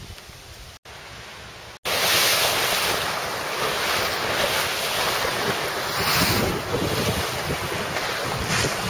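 Storm-driven lake waves surging and breaking against a stone shore wall, with strong wind and wind buffeting on the microphone. It comes in loudly about two seconds in, after a quieter start.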